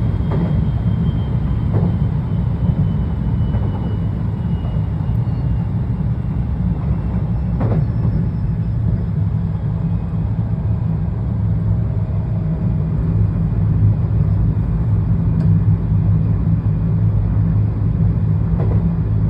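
JR West 223 series electric train running, a steady low rumble with a faint motor whine drifting slowly in pitch and a few short knocks. The uploader asks whether the motors make an abnormal noise, a sound slightly off in key mixed into their whine.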